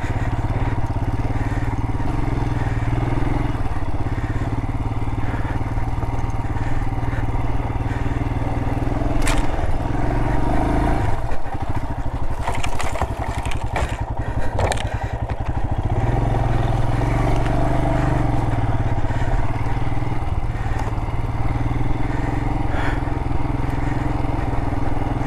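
Motorcycle engine running under load as the bike is ridden through deep sand and over rocks. Around the middle the engine note drops for a few seconds to a slower, pulsing chug, with scattered clattering knocks from stones, then steadies again.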